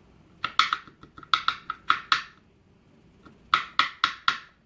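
Sharp little metallic clicks and clinks in small quick clusters, several at a time with short pauses between: tweezers and small lock pins tapping and dropping as the pins are taken out of a padlock core into a pinning tray.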